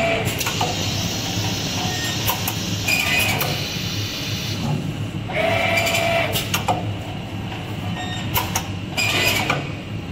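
Chocolate depositing machine on a moulding line running: a steady hum with scattered clicks and clanks, and a short whine of about half a second that recurs several times as the depositing head cycles over the moulds on the conveyor.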